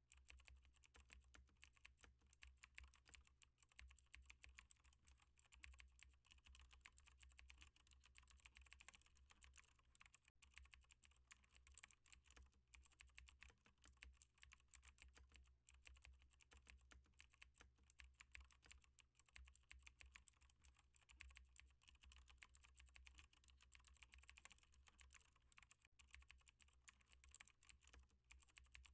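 Faint, continuous typing on a computer keyboard, a rapid run of keystrokes with a steady low hum underneath.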